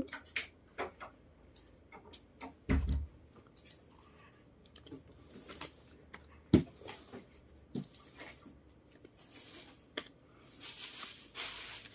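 Irregular clicks and taps of a computer mouse and keyboard, with a louder knock about three seconds in and another about six and a half seconds in, and a soft hiss near the end.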